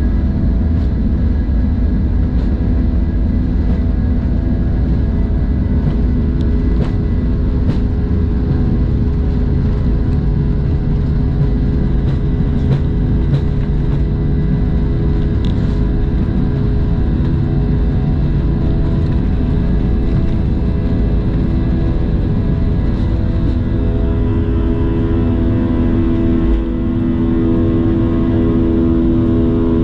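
Steady vehicle engine drone with several steady hums riding on it; the hums grow stronger about 24 seconds in.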